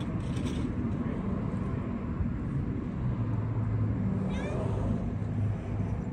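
A feral cat meows briefly about four seconds in, over a steady low hum.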